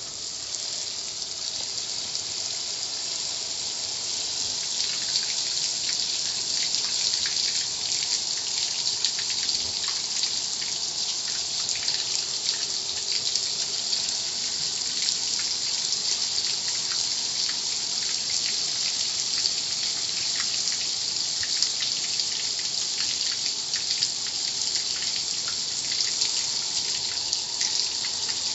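Water spray at a car wash, a steady hiss with many small spatters of water striking throughout.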